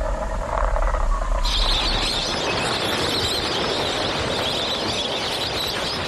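Outdoor wildlife ambience: a low rumble for about a second and a half, then a sudden switch to a dense, steady, high-pitched chorus of wild creatures.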